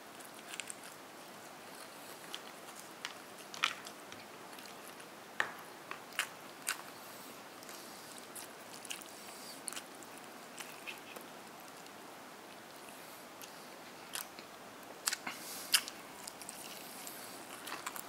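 Scattered short, sharp crunches and clicks of someone eating fried chicken-chop crumbs and french fries, over a steady faint hiss.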